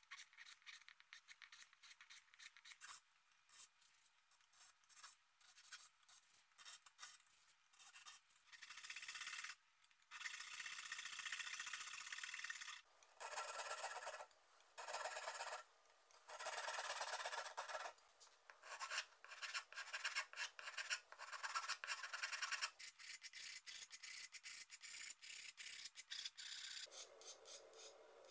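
Hand tools scraping and filing the end of a wooden snooker cue shaft: quick short scrapes at first, then long strokes of a second or two each with short gaps between, then shorter, quicker strokes, with a flat file worked over the end near the close.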